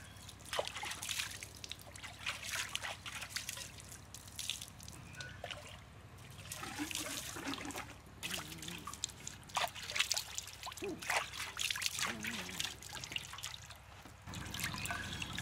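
Water trickling, dripping and splashing as a freshly cut green bamboo tube is rinsed out: water poured into and over the tube runs off it in uneven spatters.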